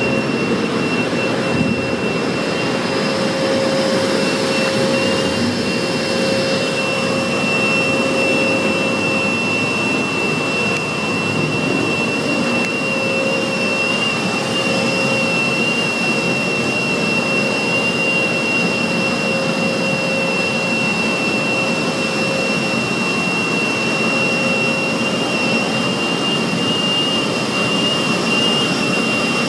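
Express car wash equipment running continuously: a loud, steady rushing noise with a constant high-pitched whine over it and a lower hum that fades in and out.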